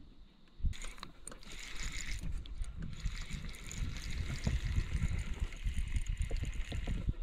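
Spinning reel being cranked, a steady gear whir that starts about a second in and carries on, over low knocks from the rod and hands being handled. The rod is bent: line is being reeled in with a fish on.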